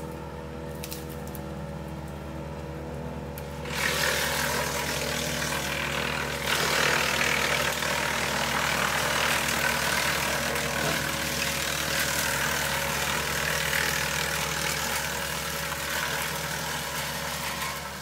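Woodland Mills TF68 PRO PTO-driven wood chipper running off a compact tractor, with a steady engine and flywheel hum. About four seconds in a branch is pulled in and a loud chipping and chip-throwing noise rises, getting louder again a couple of seconds later and going on.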